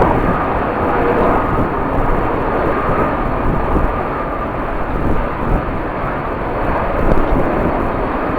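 Jet airliner engines running, a steady rush of noise with a faint high whine.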